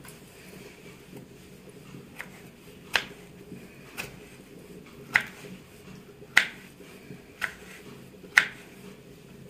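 Kitchen knife slicing through a tomato and knocking on a wooden cutting board: about seven sharp taps roughly a second apart, the later ones louder.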